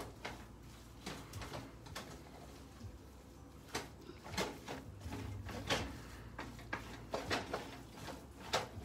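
A spoon scraping and knocking against a stainless steel skillet as a thick breadcrumb-and-seafood stuffing is stirred: irregular soft scrapes and clinks, one or two a second.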